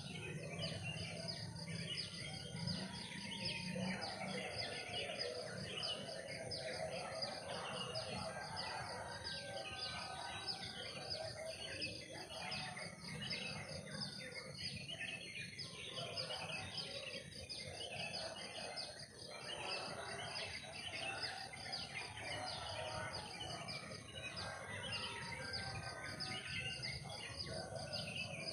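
Forest ambience: a dense, continuous chorus of chirping insects with a steady high-pitched trill, mixed with scattered bird-like chirps.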